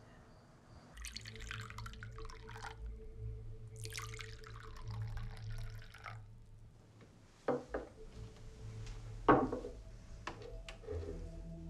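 Liquid poured in two short runs, followed by two sharp knocks on a table, the second louder, and a few lighter taps near the end, over a low steady hum.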